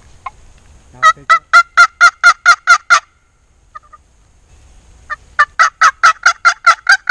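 Turkey yelping: a run of about eight loud yelps about four a second, a short pause, then a second run of about ten.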